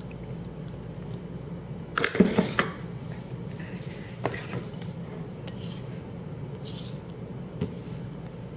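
Kitchen utensils clinking and knocking against a glass mixing bowl of rice flour: a quick cluster of sharp clinks about two seconds in, then a couple of lighter taps, over a steady low hum.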